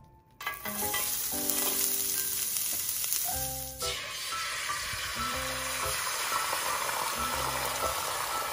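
Hot oil sizzling in a frying pan; about four seconds in, beaten egg is poured in and the sizzle grows fuller and steady as the egg sheet begins to fry.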